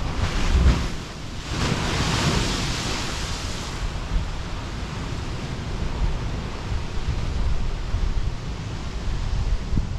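Sea waves surging into a narrow limestone inlet. A wave crashes about a second in, its spray hissing loudly for a couple of seconds, then the surf churns on steadily. Wind rumbles on the microphone throughout.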